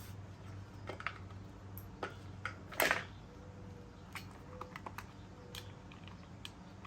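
Scattered light clicks and knocks of small engine parts and tools being handled, with one louder clatter about three seconds in, over a low steady hum.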